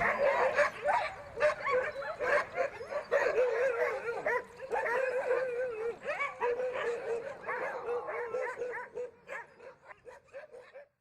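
A pack of Greenland sled dogs yelping, whining and barking together, many wavering calls overlapping, dying away near the end.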